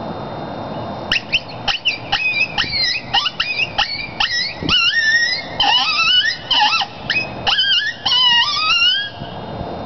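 NCK Special cow horn coyote howler blown as a coyote distress call: a rapid string of short, high yelping cries, some wavering and some dropping steeply in pitch, for about eight seconds.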